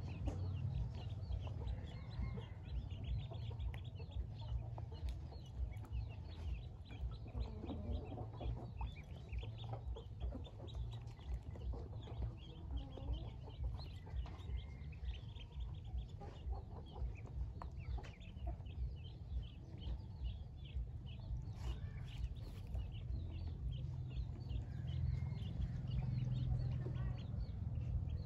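A flock of Pekin ducklings peeping continuously, many short overlapping calls, over a steady low rumble.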